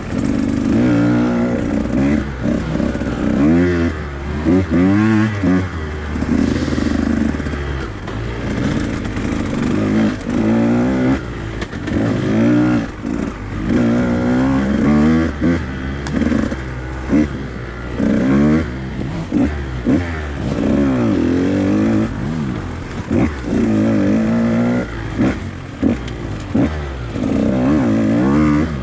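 Two-stroke enduro dirt bike engine revving up and dropping off over and over, every second or two, as the throttle is opened and shut on a tight trail.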